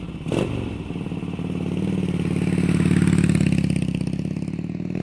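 2011 Harley-Davidson Dyna Fat Bob's air-cooled 96 cubic inch V-twin running through its over-and-under chrome mufflers, the revs swelling to a peak about three seconds in and then easing off. A short clunk comes just after the start.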